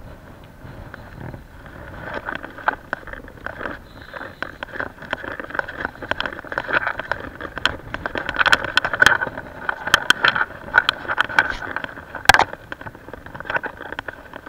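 Fishing reel being wound in: a dense run of rapid clicks and rattles that grows louder about two seconds in.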